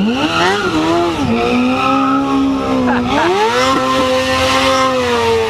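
Sport-bike engine held at high revs while the rear tyre spins on the asphalt in a burnout spin, with a hiss of tyre noise. The revs jump up and down in the first second, hold steady, dip briefly about three seconds in, then climb again and hold.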